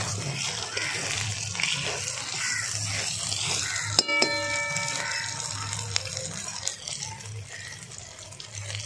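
Onion, ginger–garlic paste and green chillies sizzling as they fry in oil in a pan, with one sharp clink about four seconds in that rings for about a second.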